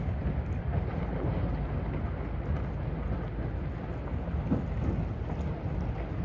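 Small cargo ship passing close through drift ice: a steady low rumble with wind buffeting the microphone, and scattered light crackles of ice floes against the hull.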